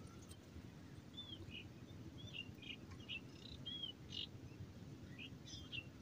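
Small birds chirping in quick, short arched and falling notes, many in a row from about a second in, over a faint low rumble of outdoor background noise.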